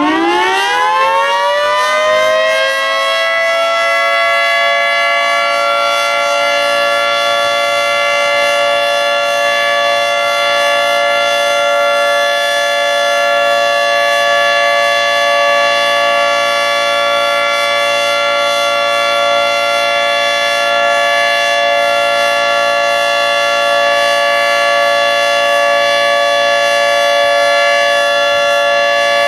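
Federal Signal 3T22 three-tone outdoor warning siren finishing its wind-up, its chord rising and levelling off within the first few seconds, then holding a steady alert tone. This is a routine monthly test of the warning siren.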